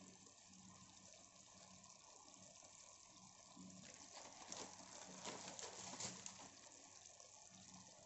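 Faint steady hiss and soft crackle of a pot of potatoes and minced meat cooking on a gas stove in its own juices, growing louder and more crackly for about two seconds in the middle.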